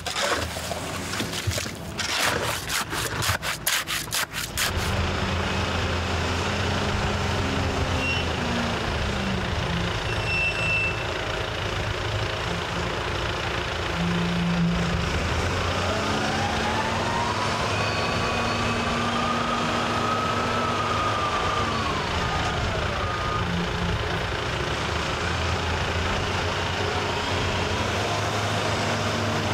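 A shovel scraping and knocking through concrete mortar for the first few seconds. After that, the diesel engine of heavy construction machinery runs steadily, its pitch rising and falling as it works, with a whine that climbs and falls back about halfway through.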